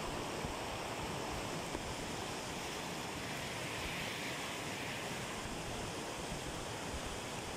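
Fast mountain river running over rocks and rapids: a steady, unbroken rush of water.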